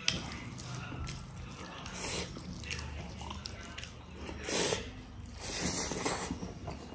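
A person eating close to the microphone, biting and chewing mutton and rice. There is a sharp click at the start and a few louder wet mouth-noise bursts spread through.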